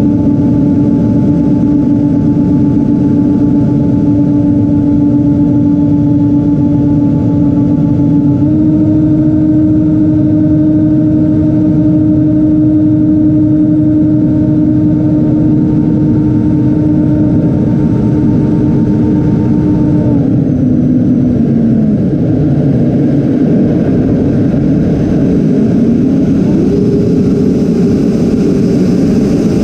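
Twin electric ducted fans of a Freewing A-10 Thunderbolt II RC jet, heard from on board over wind rush: a steady fan whine that steps up slightly in pitch about a third of the way in. About two-thirds in the pitch drops and falls away as the throttle is pulled back, and it rises again near the end.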